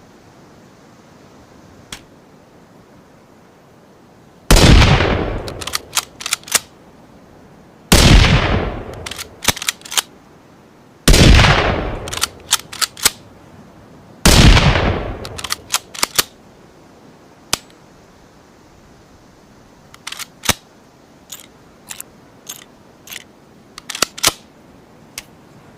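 Four loud rifle shots, a blended Ruger American bolt-action rifle sound effect, about three seconds apart, each ringing out for about a second. Sharp clicks follow each shot, and a run of lighter clicks comes near the end.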